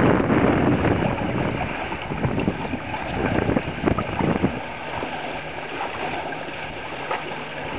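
Wind buffeting the microphone and water rushing along the hulls of a trimaran under sail. About halfway through the gusting eases and a steady low hum comes in under the water noise.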